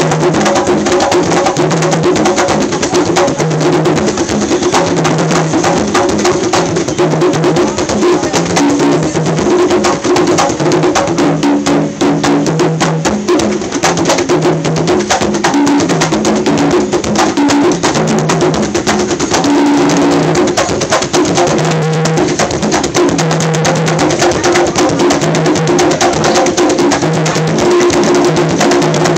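Congas and other hand drums played together in a dense, continuous rhythm, with quick slaps and ringing low open tones.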